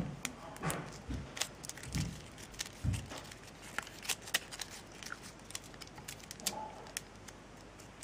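Faint crackling and crinkling of folded paper, many small clicks, as fingers squash and pinch the creases of an origami model. A few soft low thumps of handling come in the first three seconds.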